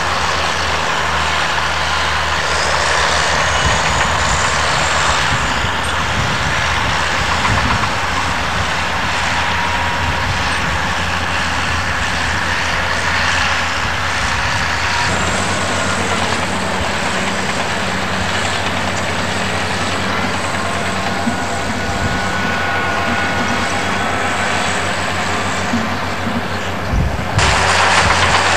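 Bulldozer's diesel engine running steadily while working, its note shifting about halfway through and changing abruptly shortly before the end.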